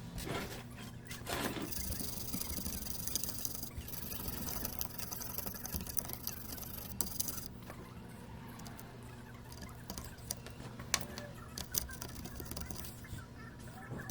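Brush scrubbing on a circuit board to clean off liquid-damage corrosion: scratchy rubbing and small clicks, with a few seconds of high hiss about two seconds in. A steady low hum runs underneath.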